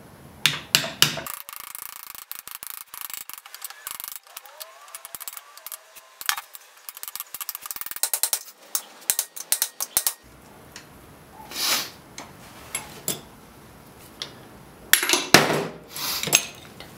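Hammer striking the old bearing, used as a driver, to drive a new countershaft bearing down into an SM465 four-speed transmission case. The taps come in irregular bursts: a quick run near the start, scattered single taps, another run in the middle, and the hardest blows near the end.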